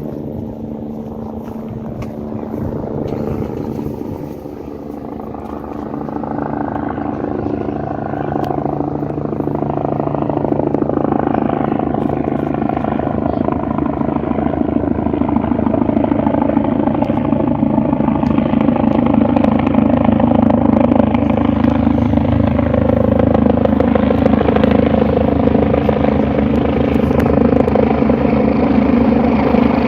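Medical helicopter's turbine engines and rotor running, a steady whine over a rapid rotor beat that grows gradually louder.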